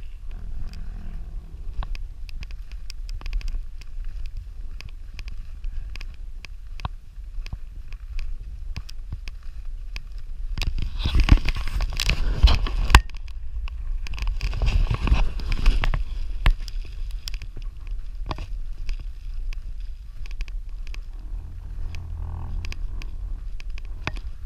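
Wind buffeting an action camera's microphone as a low rumble, with scattered clicks and crackles from the camera being moved. The rushing grows louder twice about halfway through.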